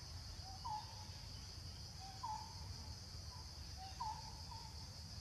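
Forest ambience: a steady high drone of insects, with a bird repeating a short two-note call, a low note then a higher one, about every second and a half.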